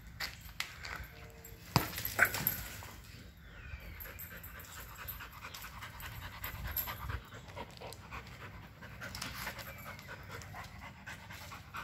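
Dog panting, with scattered short clicks and a couple of sharp knocks about two seconds in.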